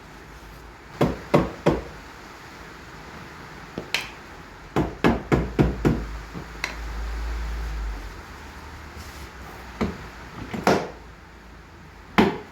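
Irregular sharp knocks and taps, in small groups with a quick run of about six in the middle: trim moulding being knocked home onto its clips on a car door.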